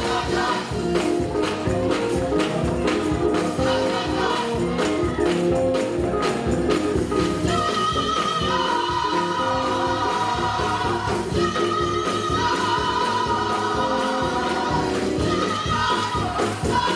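Gospel choir singing with instrumental accompaniment and a regular percussive beat; about halfway through, the voices move into long held notes.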